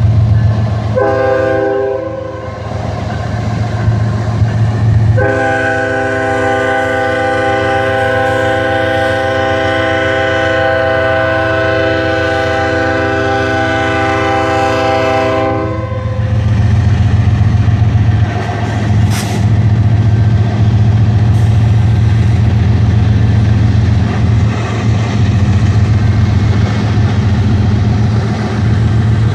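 A GE ES44DC diesel locomotive's Nathan K5HL five-chime air horn blows a short blast about a second in, then one long blast of about ten seconds, the close of the grade-crossing signal. Under it and afterwards comes the steady low rumble of the passing diesel locomotives and the train rolling through the crossing.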